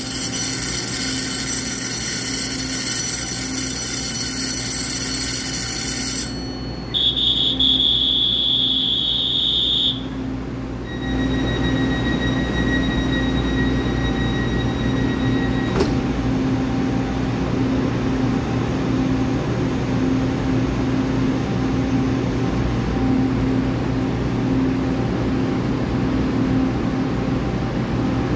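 A departure bell rings for about six seconds. Then a high door-closing buzzer sounds steadily for about three seconds as the EMU3000 train's doors close. After that comes the train's steady, slightly pulsing electrical hum as it stands at the platform.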